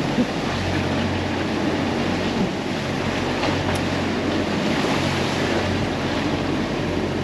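Rough sea water rushing and churning past the stern of a sailing catamaran, with wind on the microphone and a steady low hum underneath.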